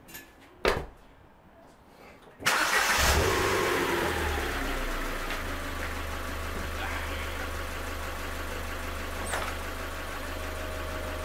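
A car engine starts about two and a half seconds in, flares briefly, then settles to a steady idle. A single short knock comes a little before it.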